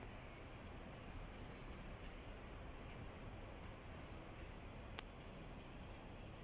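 Quiet outdoor background noise with an insect chirping high and evenly, about once a second. A single sharp click comes about five seconds in.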